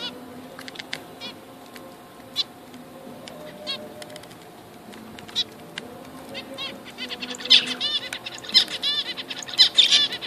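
Zebra finches calling: short, honking beeps, a few scattered ones at first, then many in quick succession over the last three seconds.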